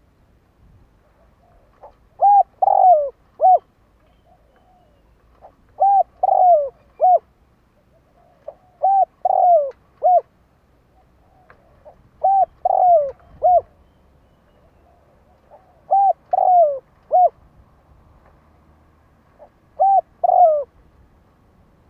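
Spotted dove cooing: six phrases of three or four notes, each with a longer falling note in the middle, repeated about every three and a half seconds. It is a decoy bird's call, used to draw in wild doves.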